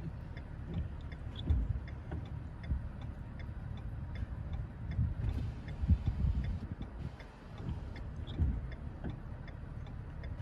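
Road noise of a vehicle driving, a low rumble with occasional bumps, over a steady light ticking about three times a second.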